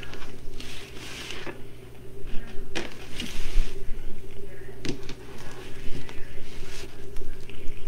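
Handling noises from craft work: scattered rustles and a few light clicks as wreath materials are picked up and arranged, over a low steady hum.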